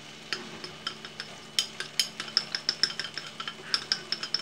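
Chopsticks scraping and tapping cooked minced beef off a ceramic plate into a frying pan: a string of sharp, ringing clicks, several each second.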